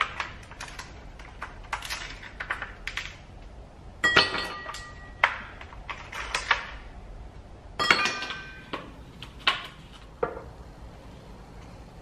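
Plastic ice cube tray being twisted and tapped, ice cubes cracking and popping loose with a run of sharp clicks. Ice cubes drop into a drinking glass, two clusters of clattering clinks about four and eight seconds in, the glass ringing briefly.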